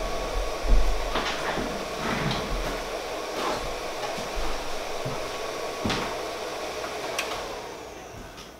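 3D printer's cooling fans running with a steady whir and a few light clicks; after a click about seven seconds in, the fan noise dies away as the printer is switched off.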